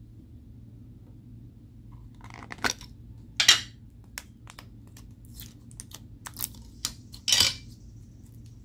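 Objects being handled while mixing slime: a series of short, sharp clicks and crackles over a low steady hum, the loudest about three and a half and seven and a half seconds in.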